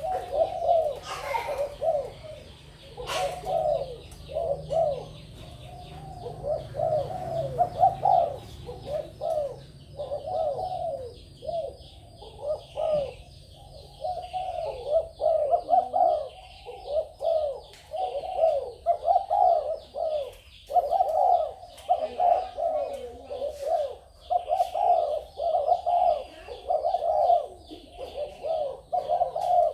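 Spotted doves cooing over and over, one phrase right after another with hardly a pause.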